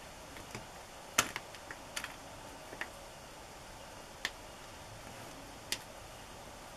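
Scattered light clicks and taps of small rubber stamps being picked out of a clear plastic storage box and set down on a table, the loudest a little over a second in.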